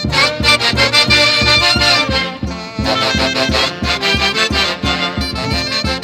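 Peruvian Santiago band music: saxophones and brass play the melody in unison over a steady, quick drum beat.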